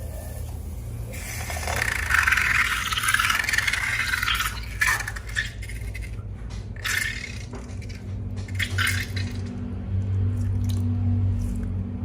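Wet slime and coloured liquid squeezed and poured out of balloons into a container: a gushing pour, then squishing, scraping and clicking. A low steady hum comes in during the second half.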